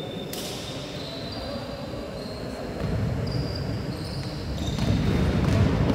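Basketball game on a hardwood court in a large, echoing hall: the ball bouncing, sneakers squeaking in short high chirps, and the thuds and shuffle of players running, growing louder in the second half.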